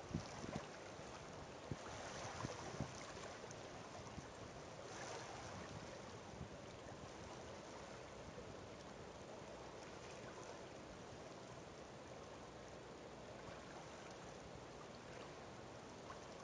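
Faint, steady wash of water lapping at a shore, swelling softly a couple of times, with a few light knocks in the first three seconds.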